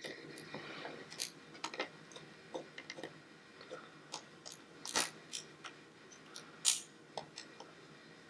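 Scattered small metallic clicks and clinks of hand tools and parts handled at the chain's master link, with a louder clink about five seconds in and a short hiss a little later.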